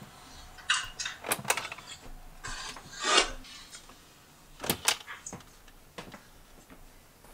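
Scattered rustles and light knocks from handling, in about five short clusters with quiet between them.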